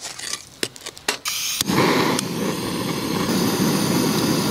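A few light knocks, then, about a second in, a handheld gas torch is lit and its flame hisses steadily and loudly into firewood in a steel fire box.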